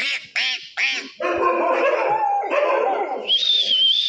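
A pack of dogs, Rajapalayam hounds among them, barking: three quick barks, then a longer stretch of overlapping barking and calling, and a high wavering whine near the end.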